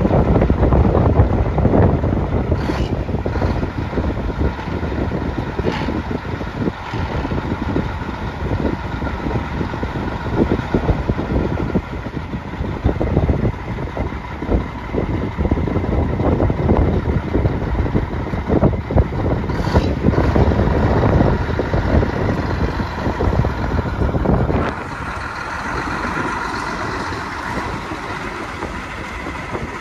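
Diesel engine of a 1972 Mack RL600L dump truck idling close by with a loud, rough rumble. About three-quarters of the way through it drops to a quieter level.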